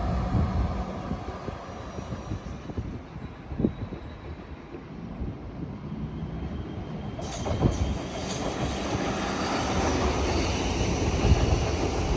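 Train running on the main line: a low rumble that dies down over the first few seconds, then the noise rises again sharply about seven seconds in and keeps building as a train comes through, with a few clicks from the wheels on the track.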